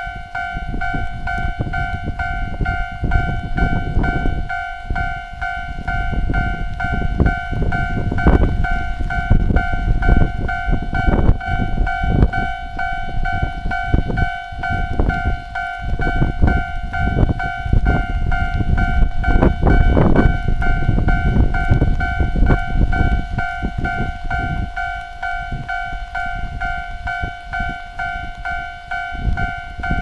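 Japanese level-crossing electronic warning bell ringing continuously as a steady two-note alarm while the barriers are down, over a loud, gusting low rumble.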